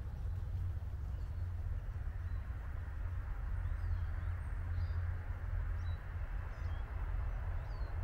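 Steady low outdoor rumble with a few faint, short, high bird chirps scattered through it.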